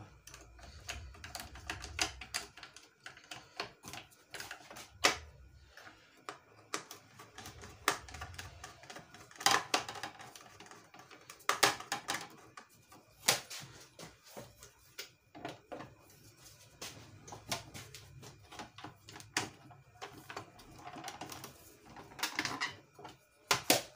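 Screwdriver tightening the screws of a Janome Secio sewing machine's plastic top cover, with the cover being handled: irregular sharp clicks and taps of metal and plastic.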